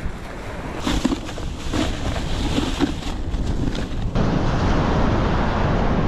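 Plastic bags crinkling and rustling as fish are packed into a cooler box. About four seconds in this gives way to steady surf and wind buffeting the microphone.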